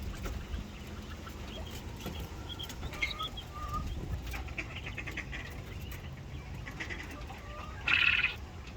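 Quails chirping now and then in their pen, with one louder, harsher call about eight seconds in; a low rumble of wind runs underneath.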